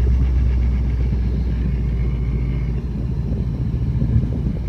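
Subaru Impreza's flat-four boxer engine running with a steady low rumble, easing off slightly about three seconds in.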